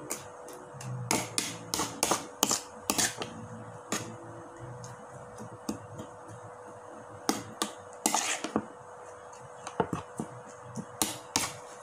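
Metal spoon clinking against a bowl while stirring a raw egg mixture, with irregular sharp clicks, a few a second at times, and gaps between them.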